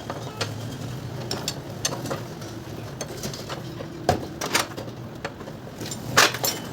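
Hand tools and small metal engine parts clinking and clicking at irregular intervals during work on a small motorcycle engine's cam timing and side cover, with a few louder knocks about four and six seconds in, over a steady low hum.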